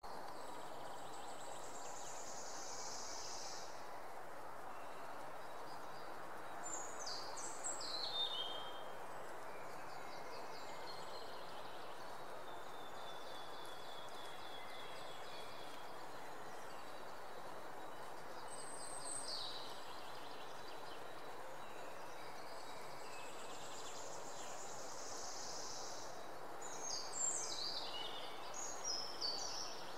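Small songbirds singing in short, high phrases every few seconds, loudest about eight seconds in and near the end, over a steady background hiss.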